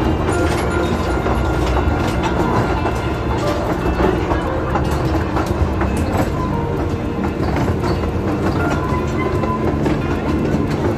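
Amusement-ride cars rolling on rails: a steady low rumble with a continuous, irregular clatter of wheel clicks.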